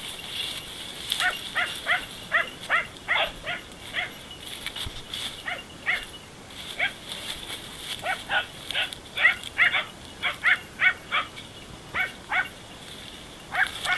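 Dachshunds barking over and over, short yaps about two or three a second in runs: hunting dogs giving tongue on a wounded wild boar hidden in the canes.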